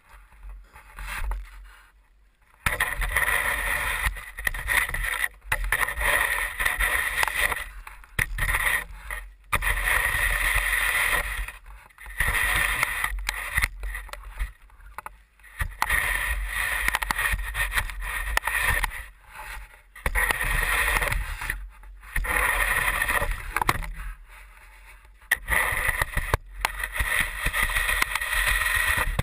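Snow shovel blade scraping and pushing snow over a hard surface, heard close up through the shovel itself: a series of long scrapes a few seconds each, with short pauses between strokes as the load is lifted and dumped.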